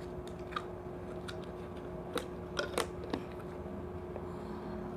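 Soft clicks and pops of slime being worked by hand, about six scattered over a few seconds, over a steady faint hum.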